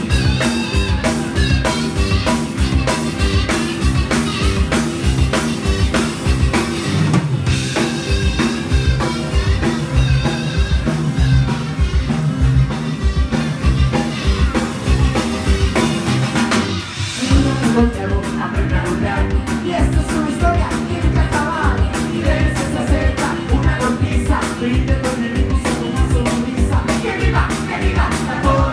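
Live rock band playing: electric guitars and a drum kit keeping a steady beat, with singing. The low end drops out briefly about two-thirds of the way through, then the full band comes back in.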